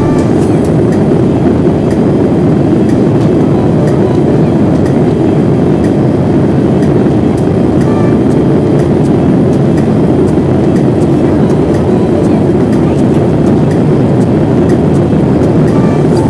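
Loud, steady cabin noise inside a Boeing 787-8 in flight, heard from a window seat over the wing. It is the steady rush of airflow and the aircraft's GEnx-1B turbofan engines.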